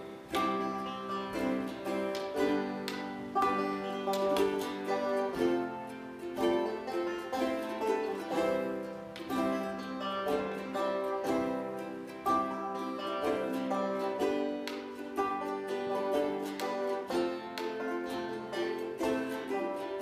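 Ukulele ensemble playing a hymn tune, a steady run of plucked and strummed notes.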